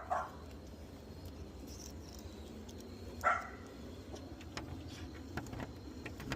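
A dog barks twice, once right at the start and once about three seconds in, with faint scattered clicks between.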